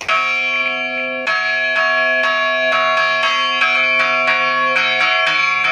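Church bells hand-rung in a festive repique: a rope pulls each clapper against a hanging bell. A first stroke opens, more bell tones join about a second in, and then strokes come about twice a second, each ringing on over the next.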